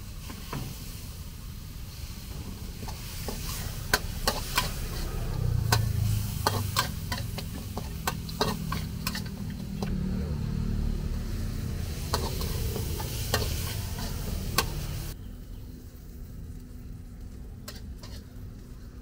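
Metal spatula scraping and clanking against a steel wok in rapid stir-frying, over the sizzle of meat frying in the pan. The clanks and sizzle stop abruptly about 15 seconds in, leaving a quieter low background.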